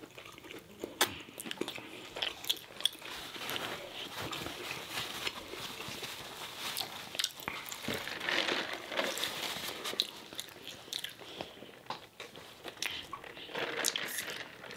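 Close-miked eating: crisp bites and crunching of McDonald's apple slices being chewed, with many small sharp mouth clicks. A paper napkin rustles about eight seconds in.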